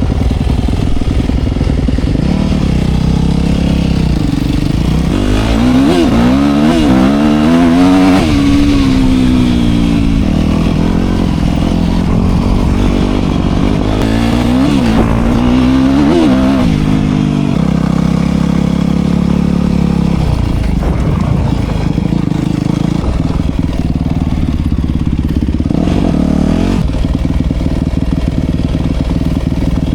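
Dirt bike engine running under way, its revs rising and falling back twice, about a fifth of the way in and again around halfway.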